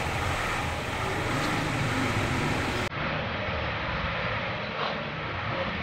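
Suzuki Escudo SUV's engine running steadily, after the car has sat unused for about five years. There is an abrupt cut in the sound about three seconds in.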